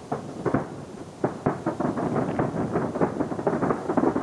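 Star mine fireworks barrage: aerial shells bursting in rapid succession, several booms a second overlapping one another and growing denser from about two seconds in.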